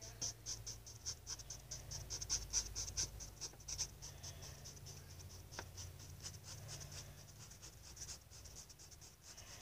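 Faint scratching in quick short strokes, several a second, sparser in the middle, over a low hum that fades out near the end.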